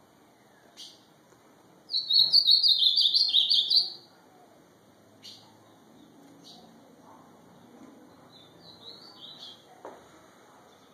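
Ultramarine grosbeak (azulão) singing: one loud phrase of quick warbled notes lasting about two seconds, starting about two seconds in. A few short high chips come before and after it, and a softer phrase near the end.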